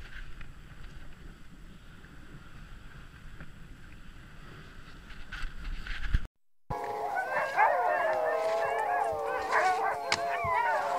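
A steady rushing noise of a dog sled running over snow, then after a sudden break a chorus of many Greenland sled dogs howling together, their overlapping wavering howls carrying on to the end.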